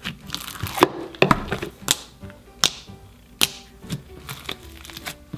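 Green slime mixed with foam beads being squished and poked by hand, making a series of sharp pops and clicks about once a second, over soft background music.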